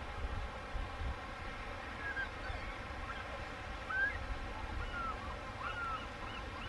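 Birds calling over a steady low rumble: scattered short chirps from about two seconds in, then a run of quick, evenly repeated calls near the end.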